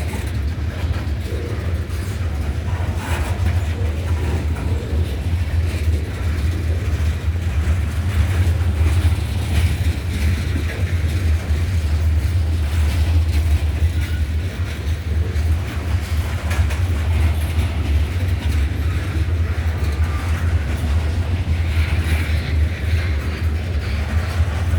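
Freight train cars rolling past with a steady low rumble and scattered clicks of steel wheels on the rails.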